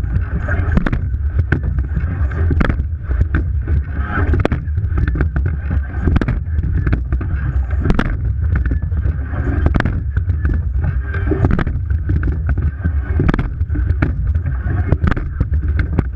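Rowing eight underway at race pace: water rushing along the hull and wind buffeting the microphone, with regular sharp knocks from the oars and riggers a little under once a second.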